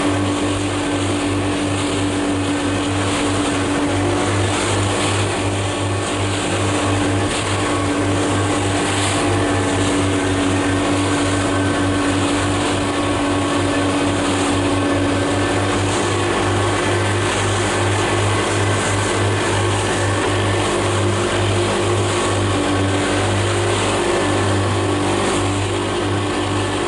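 Motorboat engine running steadily at cruising speed, a constant drone with a hum underneath, over a rush of wind and water.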